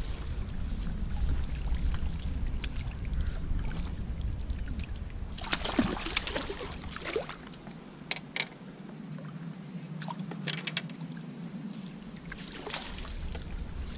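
Low wind rumble buffeting the microphone, easing off about eight seconds in and returning near the end. A few sharp knocks and a short rustle come about six seconds in, with scattered clicks later.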